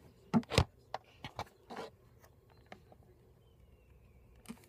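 Hot glue gun and craft pieces being handled: a few light knocks and scrapes, the loudest a pair of knocks about half a second in.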